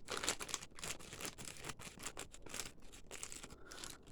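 Scissors cutting into a sealed plastic bag, with irregular crinkling and scratching of the plastic.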